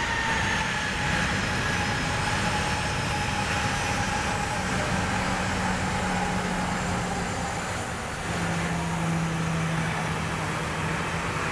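Boeing 737-800's CFM56-7B turbofan engines running as the airliner taxis: a steady jet rush with whines that slowly drop in pitch. A low hum steps down in pitch about eight seconds in.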